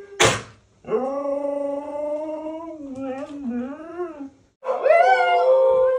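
Siberian huskies 'talking'. After a short sharp burst at the very start, a husky gives a long, wavering woo-woo howl lasting about three and a half seconds. After a brief pause comes a second, louder howl that rises and then falls.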